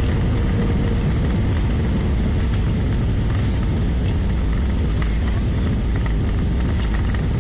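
Steady, loud, deep rumble inside an Airbus A320 cabin, the engines and the airframe on the ground just after touchdown.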